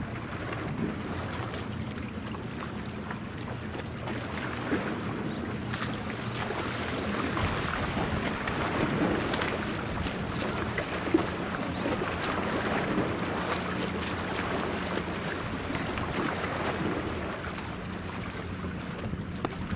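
Steady low engine hum of a ship out on the water, under a hiss of wind and water that swells in the middle and eases near the end.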